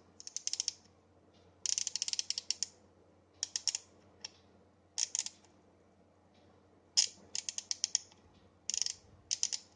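Ratchet wrench ratcheting in about six short bursts of rapid clicks, its spring-loaded pawl snapping over the teeth of the ratchet gear.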